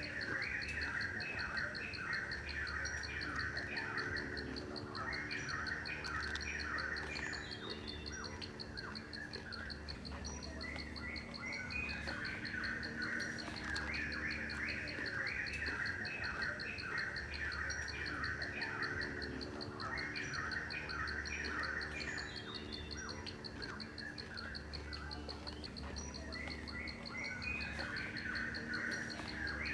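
Birds singing bursts of quick chirping phrases that come and go every few seconds, over a steady, rapid insect trill.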